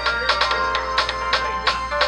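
Casio G'zOne cell phone ringtone playing: a quick melody of short electronic notes with sharp starts, several a second.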